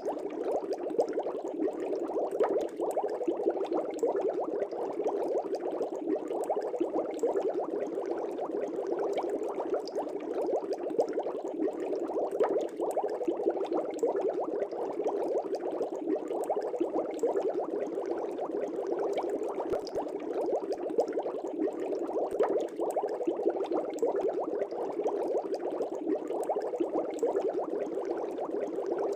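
Air bubbles in a fish tank bubbling steadily, a dense, even stream of small pops and gurgles that never lets up.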